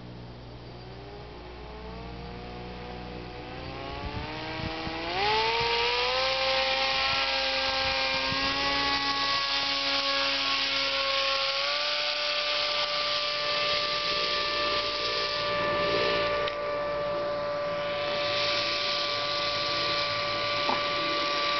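Paramotor's propeller motor whining as it is throttled up: the pitch rises over the first six seconds, steps up once more about twelve seconds in, then holds steady and high. A loud hiss of air joins about five seconds in.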